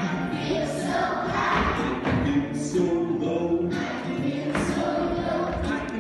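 A group of young children singing an action song together over a music accompaniment of sustained notes that change every second or so.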